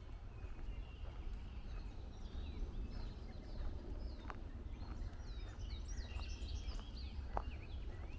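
Several woodland songbirds chirping and singing at once in short, overlapping calls, busiest in the last few seconds. Under them are the walker's footsteps on the trail, heard as a few soft knocks.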